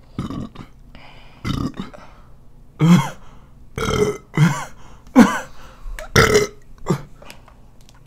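A run of short burps, about seven in quick succession, from a person who has been gulping carbonated ginger ale.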